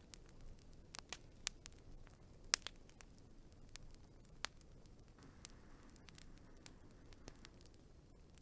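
Wood fire burning with irregular sharp crackles and pops over a faint low hiss of the flames, the loudest pop a little after two and a half seconds in.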